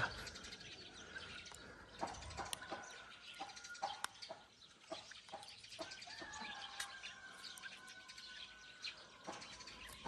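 Faint bird chirps with a few thin whistled tones, and scattered light clicks and taps.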